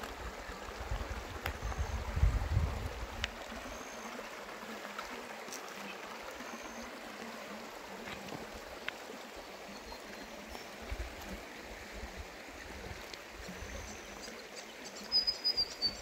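Shoalhaven River water flowing steadily over and between granite stones, an even rushing with scattered small splashes and drips. Low rumbles of wind on the microphone come and go, strongest about two seconds in.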